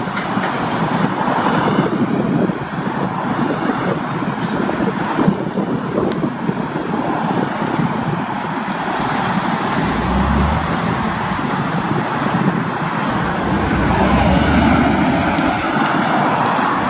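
KiwiRail DFT-class diesel-electric locomotive moving along the track with its diesel engine running, mixed with passing road traffic.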